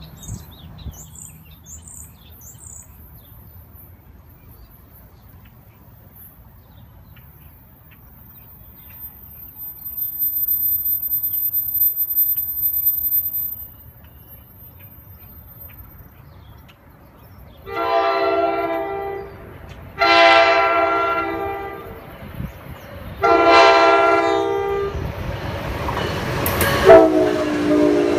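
NJ Transit ALP-46-series electric locomotive sounding its Nathan K5LA air horn as it approaches: three chord blasts of roughly two seconds each, then a further, lower-pitched blast as the train reaches the microphone amid the rising rumble and clatter of the train. Birds chirp at the start, and a low rumble swells for a few seconds in the middle.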